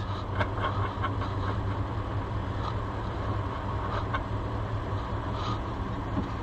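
An engine running steadily at idle, a constant low hum, with a few light clicks and taps of work on the truck.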